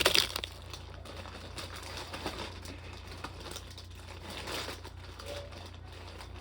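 Plastic snack packets crinkling as they are handled: a burst of loud crinkling at the start, then lighter intermittent rustling.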